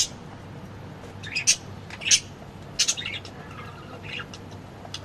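Small birds chirping: a few short, high chirps at irregular intervals.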